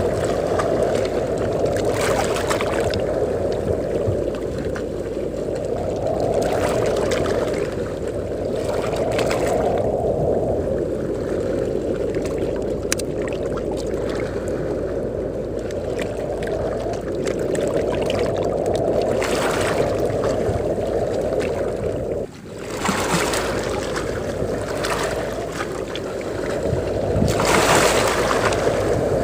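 Wind buffeting the microphone as a steady low rumble, with sea waves breaking on the shore every few seconds as hissing washes of surf.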